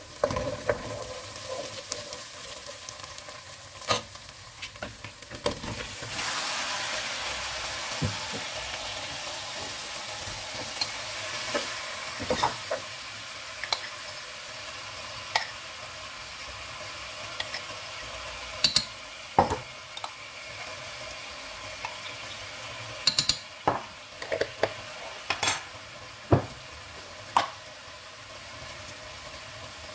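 Onions and then lamb chunks sizzling in hot oil in a pot, with a wooden spoon stirring and now and then knocking against the pot. The sizzle gets louder about six seconds in.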